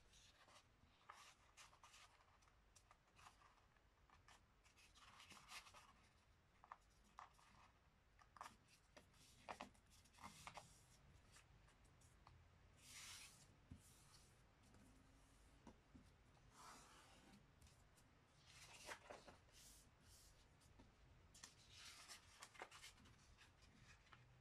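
Faint rustling and crinkling of a sheet of paper being handled and folded, with irregular small clicks. Four or five longer swishes come as fingers slide along the paper to press the folds flat.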